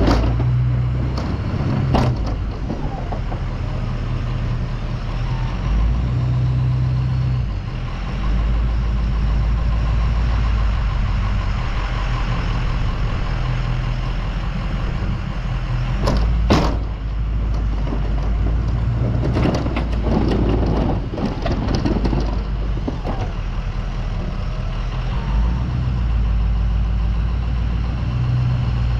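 A 2003 Ford F-250's 6.0-litre V8 diesel engine running steadily under load while the truck plows snow. Sharp knocks come about two and sixteen seconds in, and a short run of clattering follows around twenty seconds in.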